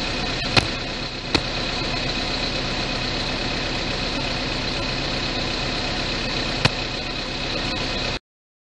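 A vehicle engine idling steadily, with a few sharp clicks over it, cutting off suddenly near the end.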